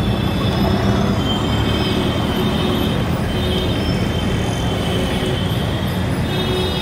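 Steady low engine rumble and road noise from inside a slowly moving vehicle, with a thin high-pitched whine that comes and goes.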